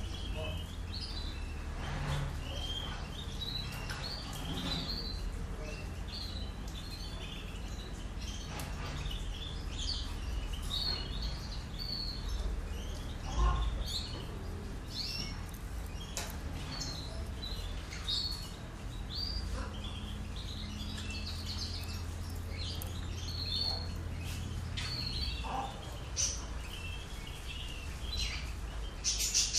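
Caged European goldfinch singing: a long run of short twittering notes and chirps, over a steady low hum. There is a single knock about halfway through.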